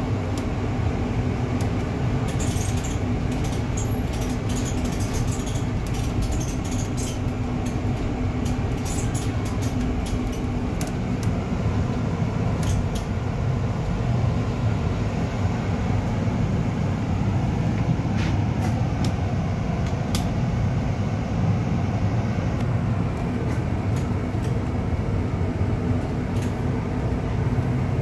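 Double-decker bus in motion, heard from the upper deck: a steady hum of engine and road noise through the cabin. Scattered light clicks and rattles are thickest in the first half.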